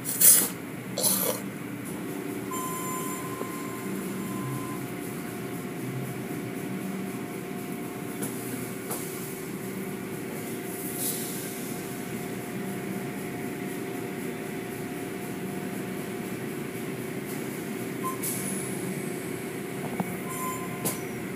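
Automatic tunnel car wash heard from inside the car's cabin. The wash machinery makes a steady mechanical hum and rumble, while cloth curtain strips and water spray wash over the car. Two loud swishing hits come in the first second and a half, and fainter swishes follow later.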